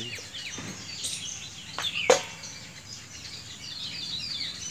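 Birds chirping again and again over a low rural background, with one sharp knock about two seconds in, the loudest sound.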